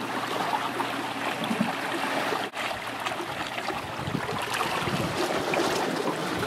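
Sea washing over shoreline rocks: a steady rushing water noise that cuts out for an instant about halfway through.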